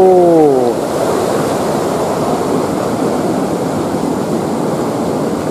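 Fast, muddy river current rushing steadily over rocks and round a boulder. A man's drawn-out exclamation trails off in the first second.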